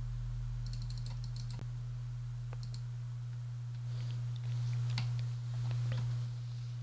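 Scattered clicks of a computer mouse and keyboard, a small flurry about a second in and a few more later, over a steady low hum.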